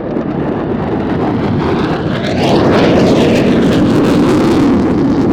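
Panavia Tornado's two RB199 turbofans in a fast final pass, wings swept back to 67 degrees: jet noise building to its loudest about three seconds in, with a falling pitch sweep as it goes by.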